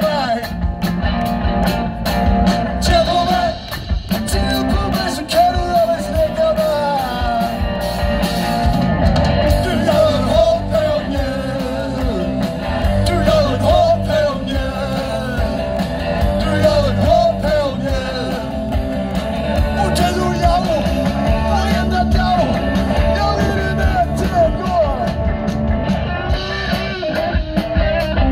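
Live rock band playing: a male lead vocal sung into a microphone over electric guitars, bass guitar and drums.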